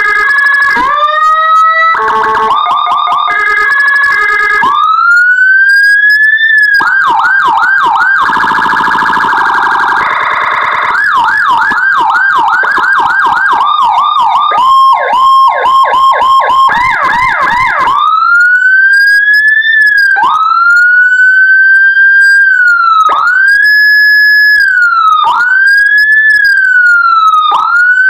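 Electronic police siren module imitating a Whelen HHS3200, played through a horn loudspeaker and switching between tones: stepped two-tone and fast warbling patterns, quick yelp sweeps, then from about two-thirds in a slower wail that rises and drops every couple of seconds.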